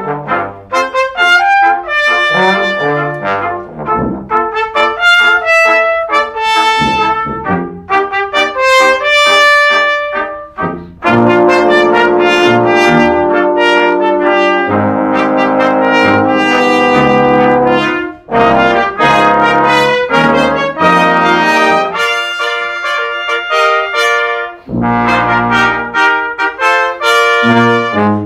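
Brass ensemble of trumpets and trombones playing a lively piece: short detached notes for about the first ten seconds, then louder held chords for several seconds, then more short phrases.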